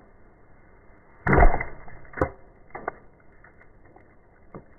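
An arrow striking a wooden log stump target with a loud, sudden thud just over a second in, followed by a sharp click and a few fainter knocks.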